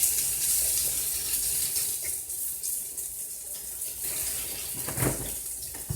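Food frying in a pan: a steady sizzle that fades slightly, with a brief low thump about five seconds in.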